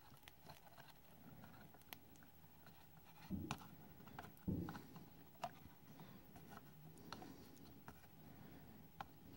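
Faint small clicks and taps of metal tweezers and a soldering iron tip against a circuit board while a surface-mount transistor is being desoldered, with two soft low thumps a little over three and four and a half seconds in.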